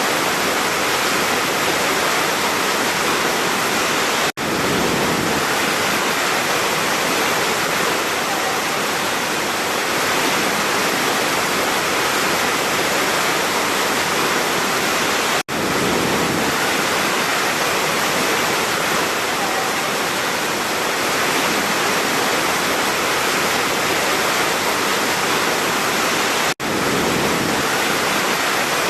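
Large waterfall: a steady, dense rush of falling water, broken three times by a split-second dropout about eleven seconds apart.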